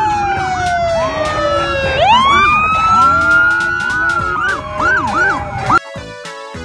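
Several police motorcycle sirens wailing at once, their pitches overlapping: one long slow fall, then rising wails and, later, quicker up-and-down yelps. They cut off abruptly near the end.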